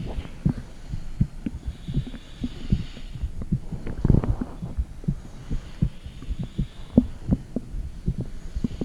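Heartbeat picked up by a microphone pressed against the body: a string of low, muffled thumps, a few per second, over a low rumble, with a broader swell about four seconds in.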